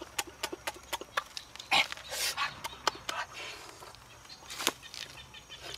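A person eating roast duck: chewing and lip-smacking, with many quick wet clicks and a few noisy breaths or slurps.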